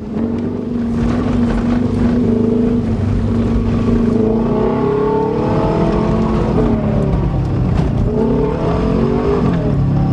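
Subaru Legacy's engine pulling through mud, holding steady for a few seconds, then revving up and down as the throttle changes.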